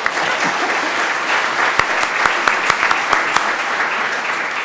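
A seated congregation applauding, many hands clapping together; it breaks out suddenly.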